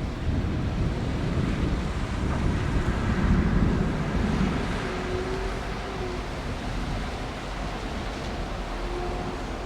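Thunder rolling: a low rumble that swells about three seconds in and then slowly dies away. A faint steady hum sits under it in the second half.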